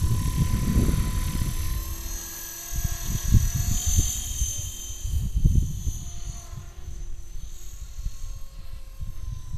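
450-size radio-controlled helicopter flying, its motor and rotors giving a steady high whine that grows louder about four seconds in. Gusts of wind buffet the microphone.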